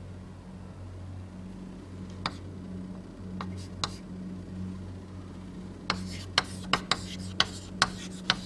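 Writing during a lecture: a few isolated sharp taps and strokes, then a quick run of them in the last couple of seconds, over a steady low electrical hum.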